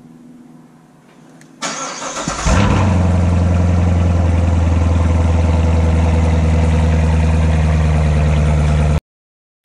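2017 Corvette Grand Sport's 6.2-litre LT1 V8 cold-starting: about a second and a half in the starter cranks, the engine catches with a quick rev flare, then settles into a loud, steady idle. The sound cuts off suddenly near the end.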